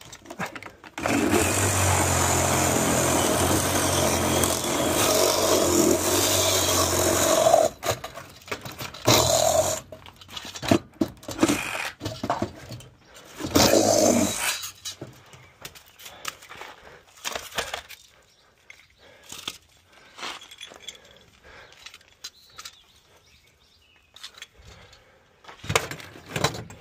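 Cordless angle grinder cutting through the copper tube bends of an aluminum-finned coil, salvaging the copper for scrap: one long cut of about six seconds starting a second in, then two short cuts near nine and thirteen seconds. After that the grinder is off and scattered clinks and knocks of handling metal pieces are heard.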